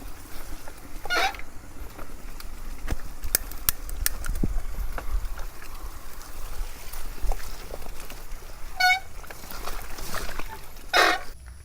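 Mountain bike riding over a rough off-road trail: a steady low rumble, with rattling clicks from the bike over bumps that bunch up a few seconds in. A single short, high-pitched toot comes about nine seconds in, and a brief swish comes near the end.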